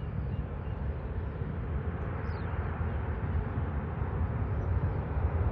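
Distant roar of a Boeing 737-800's CFM56-7B turbofan engines at climb power after takeoff, heard as a steady low rumble that grows slightly louder.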